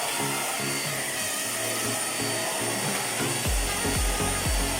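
Background music with a bass line, a thumping beat coming in near the end. Under it is the steady hiss of a handheld vacuum cleaner running.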